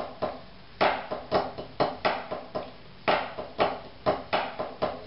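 Wooden drumsticks on a rubber practice pad playing a rudimental snare-solo passage: sixteenth-note groups in twos with flams and accents, sharp strokes at about four to five a second with two short breaks.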